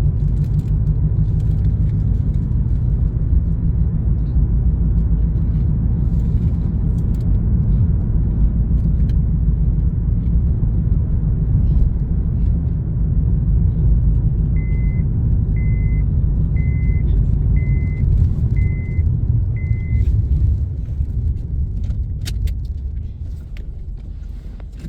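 Car interior noise while driving: a steady low engine and road rumble inside the cabin. Partway through, six short high-pitched beeps sound about a second apart, and the rumble grows quieter over the last few seconds.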